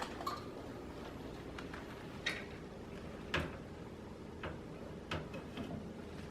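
Scattered light clicks and knocks of computer parts being handled and fitted into a PC case, about half a dozen spread irregularly, the sharpest a little after two and three seconds in.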